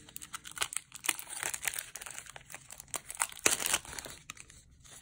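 Clear cellophane shrink-wrap crinkling and tearing as it is peeled off a small box by hand, in quick irregular crackles that are loudest about three and a half seconds in.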